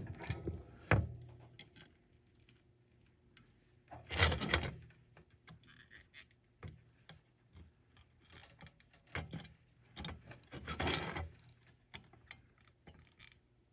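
Small parts and tools handled on a workbench: scattered light clicks and rattles, with two louder rustling, clattering bursts about four and eleven seconds in.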